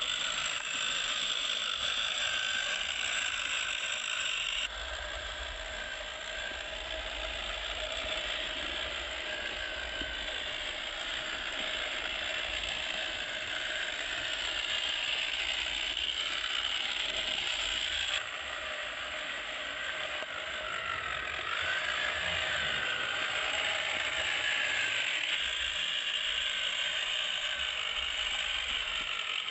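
A homemade 1/10-scale RC crawler's electric motor and gear train whirring steadily as it drives, with a small wavering in pitch partway through as the speed changes. The tone shifts abruptly twice.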